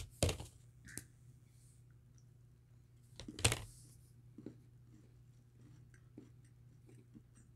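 People biting and chewing Maltesers, crunchy malted-milk balls in chocolate: small clicks and crunches, one louder crackle about three and a half seconds in, then scattered faint ticks of chewing, over a faint steady low hum.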